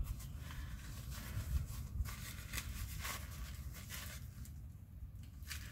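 Faint cloth rustling and light handling noises as a black cloth is pulled off a small glass piece, with a low steady rumble underneath.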